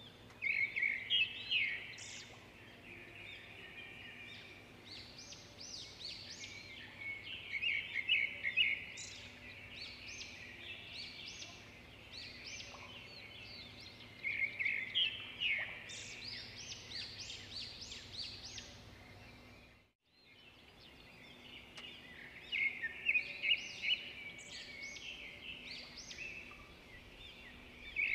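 Small birds chirping and twittering in clusters of quick, high notes, with a short gap about twenty seconds in.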